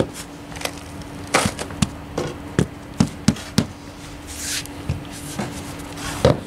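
Rubber mallet tapping a bluestone flag down to set it in its bed: about a dozen dull, sharp knocks at an uneven pace, with a pause of about a second in the middle.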